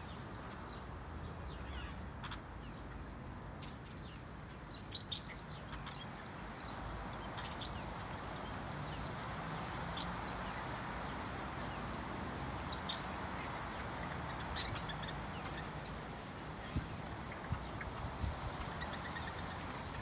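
Small birds in a mixed finch and softbill aviary giving scattered short, high chirps and calls over steady background noise.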